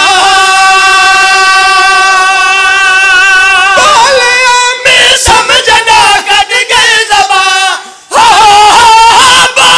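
Men's voices chanting loudly in a majlis recitation. One long note is held for the first few seconds, then the chant moves up and down, with a brief break near the end.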